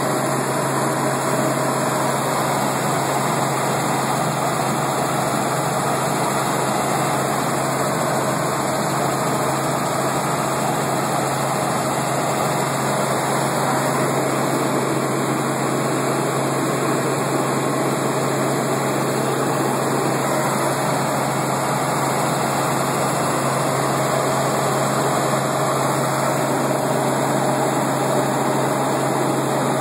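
Helicopter in flight heard from inside the cabin: a steady, loud rush of engine and rotor noise over a constant low hum, unchanging throughout.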